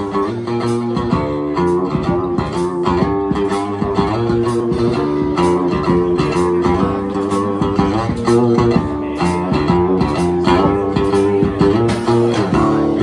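Instrumental intro of a live song: acoustic guitar strummed in a steady rhythm, with drums and cymbals keeping time about twice a second.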